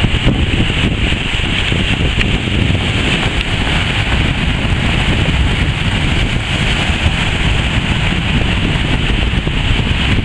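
Steady wind noise buffeting the microphone over small waves breaking and washing up a sandy beach.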